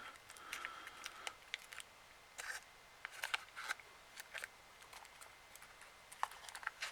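Faint, irregular small clicks and scrapes of hand tools and plastic parts being handled during a Nintendo 3DS XL touch-screen repair.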